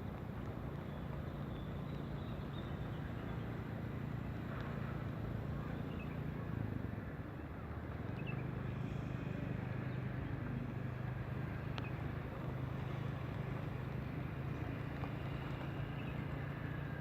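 An engine running steadily with a low hum. Its level dips briefly about seven seconds in, then it settles back at a slightly shifted pitch.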